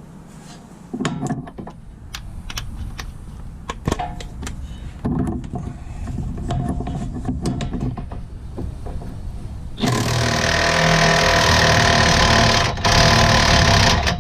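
Metal tools clinking and knocking against the suspension, then a cordless impact wrench hammering on a rusted strut rod nut for about four seconds, with a brief pause partway through, until the nut breaks loose.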